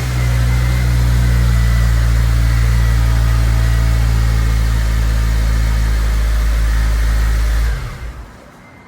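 Honda K20 four-cylinder engine idling steadily, then stopping abruptly near the end.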